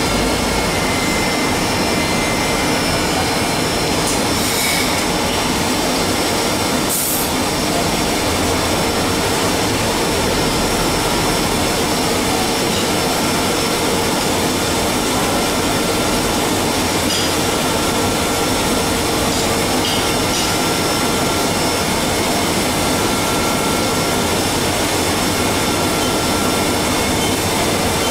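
Haas CNC milling machine cutting a cam held on a 4th-axis rotary indexer: steady machining noise with a constant whine from the spindle and drives, and two brief hisses about five and seven seconds in.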